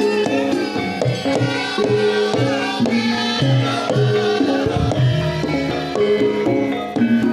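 Javanese gamelan music accompanying a lengger dance: struck metal keyed instruments play a stepped melody over a steady beat on hand drums, amplified through a sound system.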